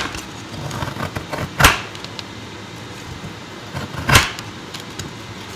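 Kitchen knife cutting into a frozen onion: two loud, short cutting strokes, about a second and a half and four seconds in, with fainter scrapes and knocks between.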